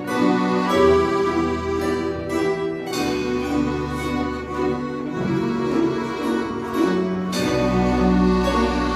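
A children's folk-instrument orchestra playing: plucked gusli strings over sustained accordion chords and a held bass line.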